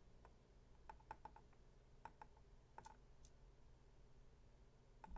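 Near silence with a handful of faint, light clicks scattered through the first few seconds as hands handle a thermal camera rig over a circuit board.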